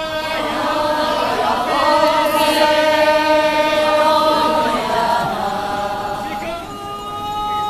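A group of festival participants chanting in chorus, many voices singing long drawn-out notes together. The chant swells in the middle and eases off after about five seconds into a thinner held note.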